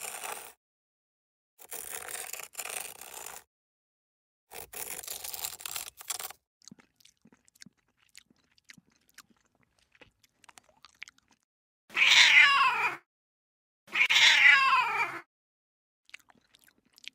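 Paper tearing in three rustling bursts, then faint scattered ticks, then a cat gives two loud meows of about a second each near the end.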